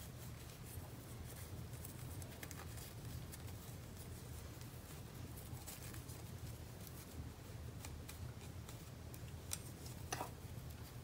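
Small scattered clicks and rustles of hands handling craft supplies (a small ruler and ribbon) over a low steady hum, with two sharper clicks near the end.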